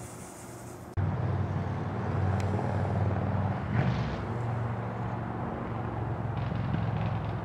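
Steady low mechanical hum of a motor or engine running, coming in suddenly about a second in, with a short hiss near the middle.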